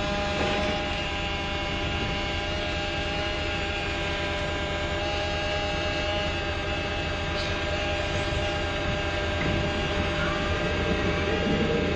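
Radio-controlled scale Liebherr 944 excavator's electric motors and hydraulic pump running with a steady whine and hum as it tracks off the low-loader. A wavering sound comes in near the end.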